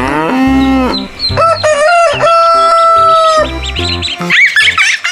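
Rooster crowing, a long call with a held note about two seconds in, over background music with a steady bass beat; high chick peeps come in near the end.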